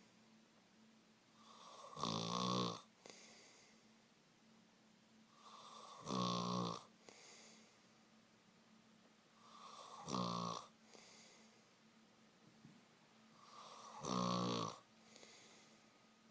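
A man snoring in deep sleep. Four loud, buzzing snores come about every four seconds, each followed by a softer breath.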